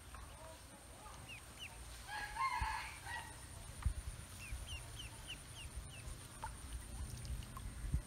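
Ducklings peeping in short, high, falling cheeps, a couple about a second in and a quick run of about five a little after the middle. About two seconds in, a louder drawn-out fowl call lasting about a second stands out above them.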